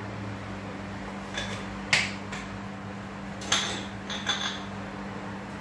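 Glass spice jars clinking and knocking as they are handled and set back on a spice rack: a few sharp taps, the loudest about two seconds in, over a steady low hum.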